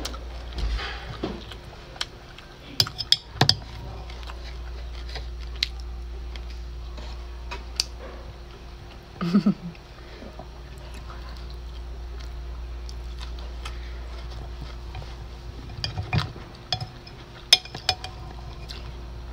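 Metal chopsticks clinking and tapping against a glass food container, in scattered single clicks and small clusters, over a steady low hum.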